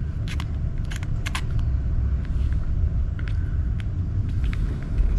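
Small metal clicks and taps as the parts of a metal spinning top are handled and fitted back together, over a steady low rumble.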